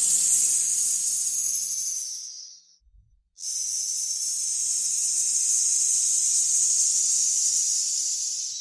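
Snake hissing twice: a high-pitched hiss of about two and a half seconds that fades away, then after a short pause a second, longer steady hiss.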